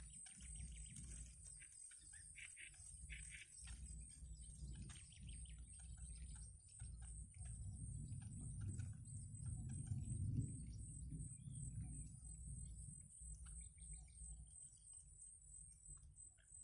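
Heron chicks in the nest giving short, high begging calls as a parent feeds them, the calls mostly in the first few seconds. A steady high insect buzz runs underneath, and a low rumble swells around the middle.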